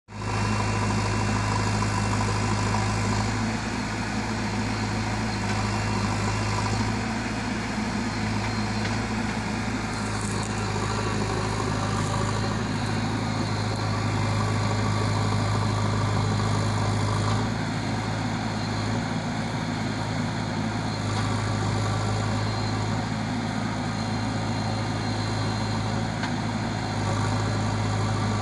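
Heavy diesel engine running at an even, steady speed: a constant low drone with no clear revving.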